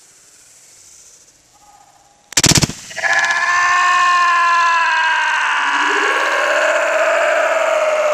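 A sledgehammer smashing into a plastic gallon jug of milk: a sudden, very loud burst of sharp impacts about two and a half seconds in. It is followed by a loud, sustained, wavering sound of several pitches together that lasts to the end.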